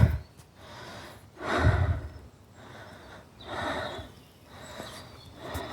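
A person breathing heavily close to the microphone: three noisy breaths about two seconds apart.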